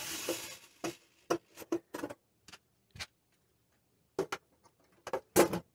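A small power screwdriver runs briefly while driving a screw into the slow cooker's steel base, stopping about half a second in. It is followed by a dozen or so scattered light clicks and taps, the loudest few near the end.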